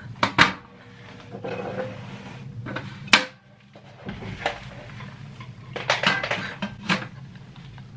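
Knocks and clatter of objects being handled and set down, with a sharp knock about three seconds in and a quick run of clicks and knocks around six to seven seconds, over a faint steady hum.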